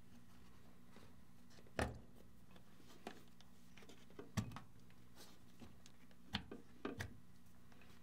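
Faint handling noise of wires and crimp spade connectors being worked loose and pulled off a trolling motor's control board: a few short clicks and rustles spread through, over a steady low hum.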